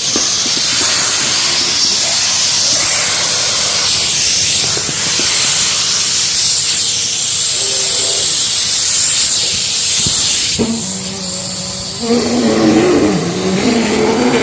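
Vacuum cleaner running, a steady loud rushing hiss of air. About ten and a half seconds in the hiss drops away and a lower hum with steady tones comes through, joined by wavering tones near the end.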